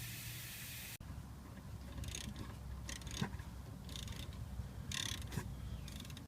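Light metallic scrapes and clicks of hand tools working on a car's rear brake caliper, coming irregularly about once a second. The clip opens with a steady hiss that cuts off abruptly about a second in.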